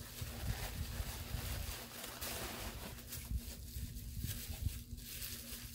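Rustling and crinkling of packaging as products are handled and unwrapped, with handling bumps and a faint steady electrical hum underneath.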